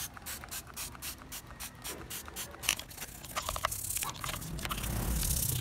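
Trigger spray bottle squirting degreaser in quick repeated sprays, about four or five a second, for the first couple of seconds. After that a small brush scrubs the foamed-up metal, a rougher rubbing sound that grows louder toward the end.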